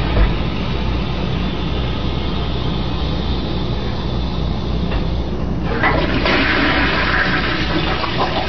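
Toilet running with a steady rush of water, the tank refilling; about six seconds in a fresh flush starts and the rushing water grows louder and brighter, set off by a cat pushing down the flush handle.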